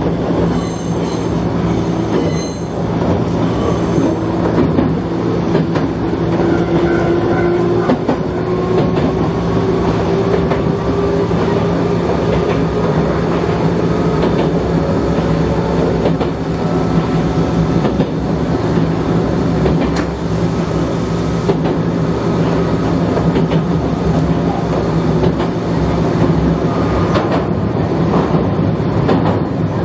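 Gakunan Railway electric train running along the track: steady rumble of wheels on rails with a motor whine that rises slowly in pitch over the first half, as the train picks up speed.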